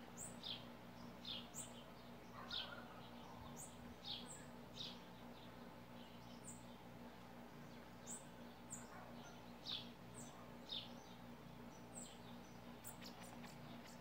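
Small birds chirping: short, high chirps every second or so, irregular and faint, over a steady low hum.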